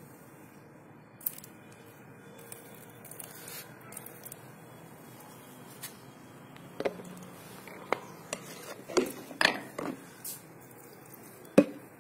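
Faint background hiss with a handful of short, sharp clicks and knocks, most of them bunched in the second half and one near the end.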